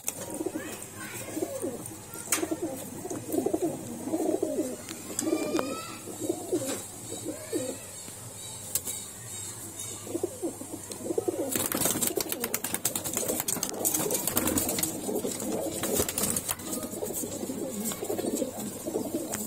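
A flock of Moradabadi bhure pigeons cooing, one warbling coo after another. About halfway through, a few seconds of fast clatter join in.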